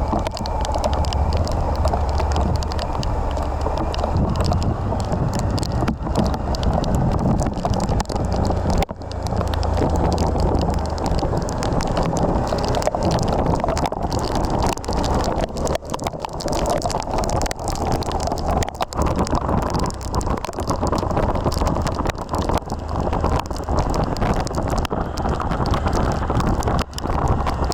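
Suzuki V-Strom 1050XT motorcycle on the move in rain: a steady low engine drone under wind rushing over the microphone, with a brief dip about nine seconds in and another near the end.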